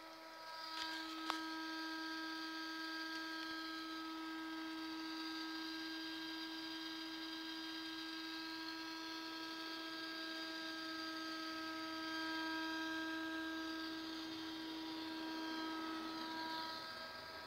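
Steady electrical hum from the breadboarded converter test setup, with a higher, wavering whine above it. There is a sharp click about a second in, and the hum eases off near the end.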